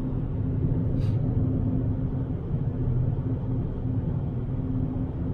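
Fiat Bravo 1.6 heard from inside the cabin while cruising: a steady low drone of engine and tyres on a snowy road. There is one brief, faint tick about a second in.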